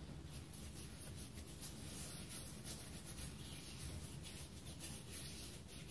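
Olive oil being spread by hand over raw pizza dough in a frying pan: faint, quick, repeated soft rubbing strokes on the dough.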